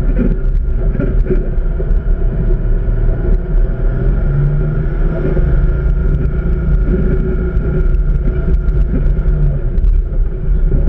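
Service rig's diesel engine running as the rig is driven: a steady low drone with frequent clicks and rattles.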